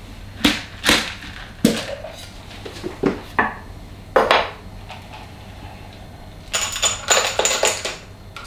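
Sharp metal clinks and knocks of a stainless-steel cocktail shaker being opened, with its cap and strainer set down on a wooden board: five knocks in the first four and a half seconds. From about six and a half seconds, the frozen, slushy passion-fruit cocktail is poured from the shaker tin into a glass for nearly two seconds.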